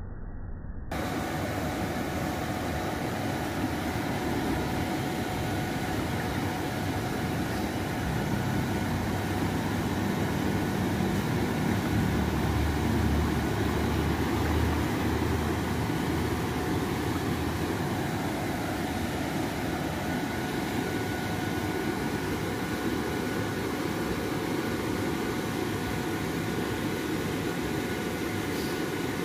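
Steady rushing noise of flowing water spilling through a culvert into a canal, with a faint steady hum under it; the low rumble swells a little in the middle.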